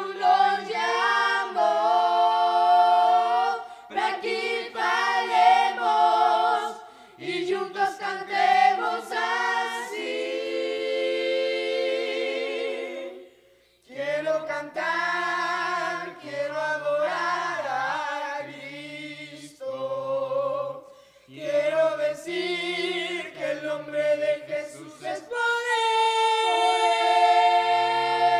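A five-voice boys' a cappella group singing a Spanish-language Christian worship song in close harmony, with no instruments. About halfway through, a long held chord with vibrato breaks off briefly, and a low bass part then sings under the others.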